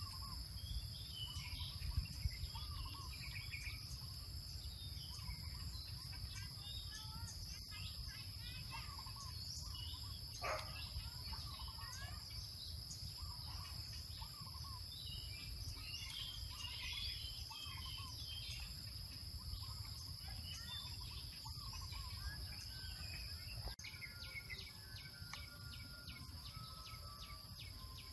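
Outdoor ambience of insects droning in two steady high tones, with scattered bird chirps over a low rumble. A couple of sharp knocks stand out about two seconds in.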